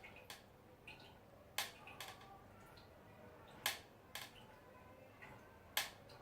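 Road bike crankset creaking on the drive side: a sharp creak about every two seconds, each followed half a second later by a weaker one, in time with the turning crank. The creak comes from the main drive and is loud on the drive side.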